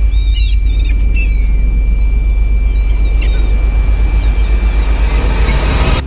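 A loud, pulsing low rumble with a few short bird chirps over it, swelling up near the end and then cutting off sharply.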